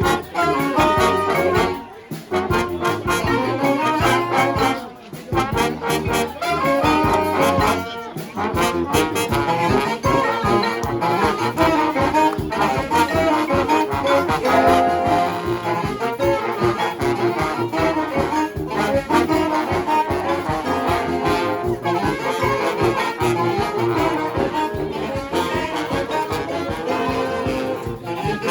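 A brass band heavy on trombones, with trumpets, playing a tune over a steady beat, with short breaks about 2 and 5 seconds in.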